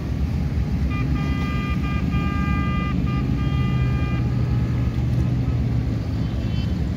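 Boat horns honking in several blasts, one held about a second, over the steady low rumble of boat engines and wind on the microphone.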